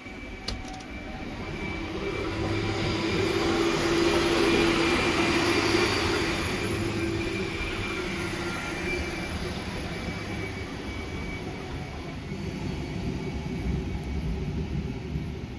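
Engine noise from something passing by, swelling to a peak about five seconds in and then fading slowly, with a steady hum running through it.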